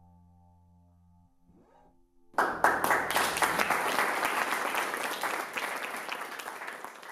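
The last sustained tones of an electric bass piece run through a Max patch die away in the first second or so. A little over two seconds in, an audience breaks into applause, which slowly tails off.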